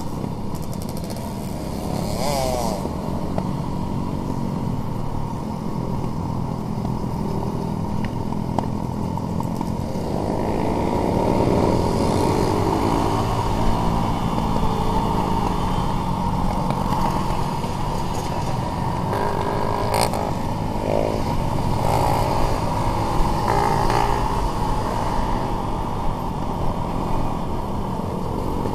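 Trail motorcycle engines running on a group ride, heard from onboard the rider's own bike, the engine pitch rising and falling with the throttle several times.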